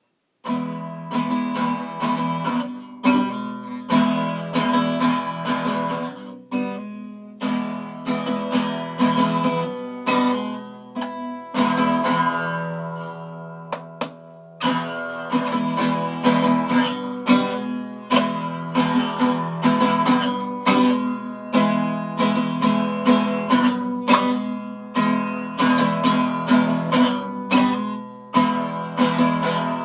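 Guitar music, chords strummed in a steady rhythm, starting about half a second in. Around the middle one chord is left to ring and fade before the strumming picks up again.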